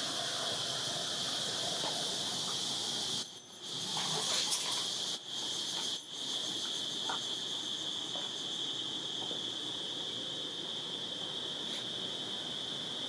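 Steady, high-pitched drone of insects, broken by a few short gaps.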